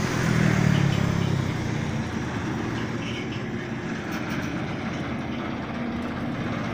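Steady traffic noise from vehicles crossing the bridge, with an engine's low rumble loudest in about the first second and a half.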